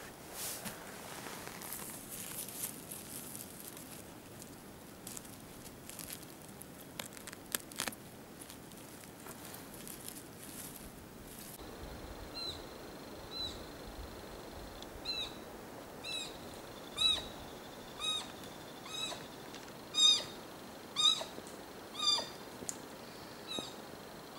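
Footsteps cracking twigs and needles on a forest floor, then an animal's short, arching high-pitched calls repeating about once a second, louder toward the end, over a faint steady high tone.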